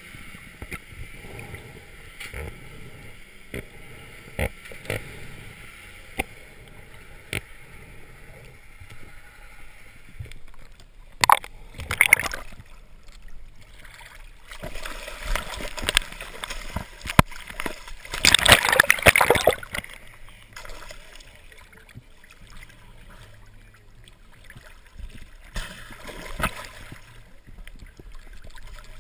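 Muffled underwater noise with scattered clicks, then water splashing and sloshing around the camera as the diver breaks the surface with a speared striped bass. The splashing comes in bursts, the loudest about two-thirds of the way through.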